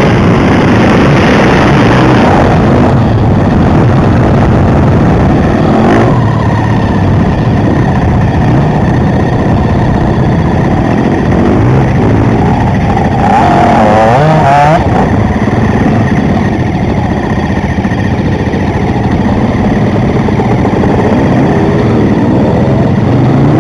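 Enduro motorcycle engine running under way, with a dense steady rushing noise over it; the revs swing up and down briefly about halfway through.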